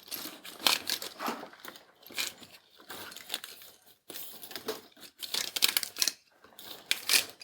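Plastic split spiral-tube cable sleeve crinkling and clicking as a cable is pushed into it and the sleeve is worked along the wire bundle by hand, in irregular scrapes and snaps.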